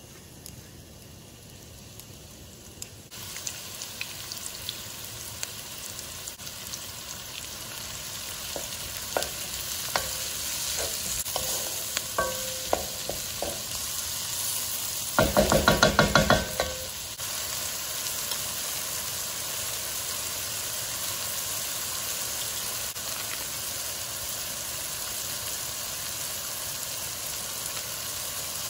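Diced onions frying in canola oil in a nonstick pan, sizzling from about three seconds in and growing louder. A spatula stirs and clicks against the pan, with a quick run of loud knocks about halfway through.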